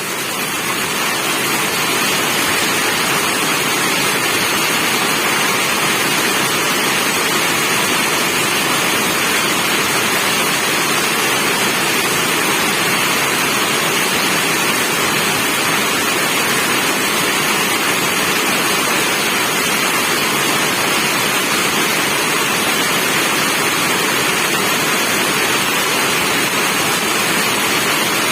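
Steady rain falling: an even, unbroken hiss with no single drops or other sounds standing out.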